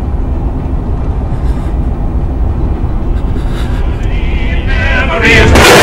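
Horror sound design: a deep, steady rumbling drone. Near the end a wavering high cry rises into a very loud screeching burst.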